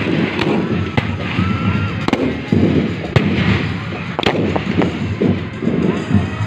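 Fireworks display: aerial shells and rockets going off in a dense, irregular series of sharp bangs and pops several times a second.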